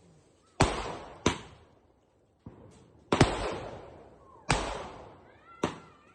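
Multi-shot aerial firework cake (120-shot sky shot) firing: about six sharp bangs at uneven intervals of roughly a second, two of them close together near the middle, each followed by a fading crackling tail.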